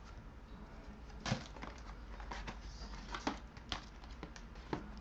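Small cardboard trading-card box being opened and handled by hand: a few faint, sharp clicks and scrapes of the cardboard, the loudest about a second in.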